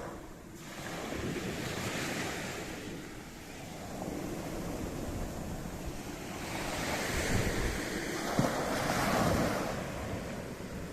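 Sea waves breaking and washing up the beach, swelling twice: once about a second in and more strongly from about six to nine seconds in. Wind buffets the microphone throughout.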